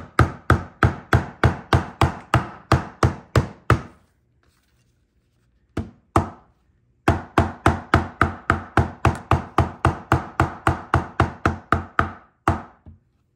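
Convex-head leatherworking hammer tapping along the glued seams of a two-layer veg-tan leather holster lying on a glass slab. The taps set the contact-cement bond. They come in quick, even runs of about four a second: one at the start, a pause of about three seconds with two lone taps, then another long run and a final tap.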